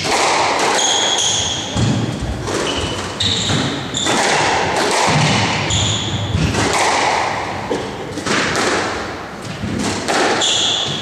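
Squash rally: the ball struck by rackets and hitting the court walls in a string of sharp impacts at irregular intervals, with short high squeaks of shoes on the wooden court floor in between.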